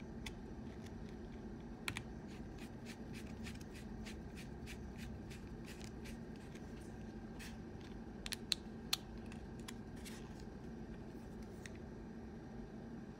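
A precision screwdriver turning tiny screws into a resin 3D-printed battery shell: faint, irregular little clicks and scratches of the driver tip working in the screw heads, with a few sharper clicks about two seconds in and again around two-thirds of the way through. A faint steady hum runs underneath.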